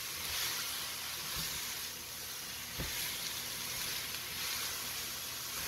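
Sliced bell peppers, onion and tomato sizzling steadily in an enamelled cast-iron skillet as they are stirred with a spatula, with one soft knock about three seconds in.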